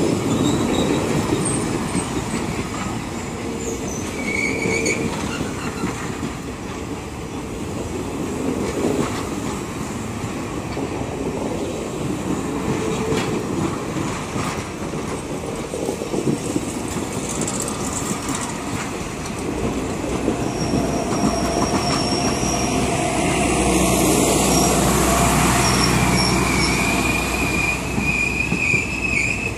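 Passenger train cars rolling past close by, their wheels clattering on the rails with brief high-pitched squeals. A deeper rumble builds about two-thirds of the way through.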